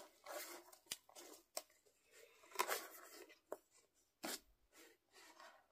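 Thin plastic cup handled and its lid peeled open: faint rustling with about five sharp plastic clicks.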